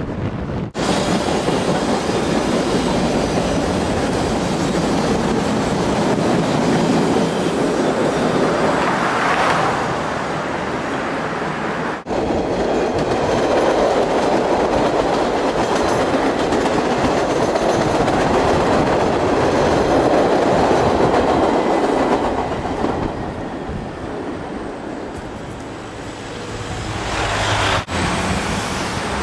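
MBTA Red Line rapid-transit train running past on its rails, wheels clattering, fading down for a few seconds near the end. The sound breaks off abruptly about a second in and again about twelve seconds in.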